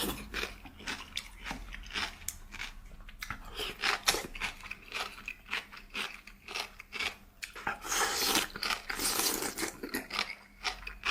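Close-miked mukbang eating sounds: a person chewing lamb-filled wontons, with many short wet clicks and smacks. A longer rushing noise comes about eight seconds in.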